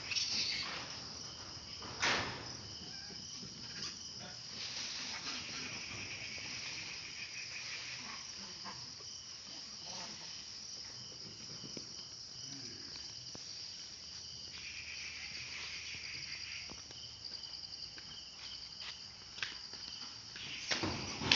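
A steady, high-pitched insect chorus, with a few short knocks; the loudest knock comes about two seconds in.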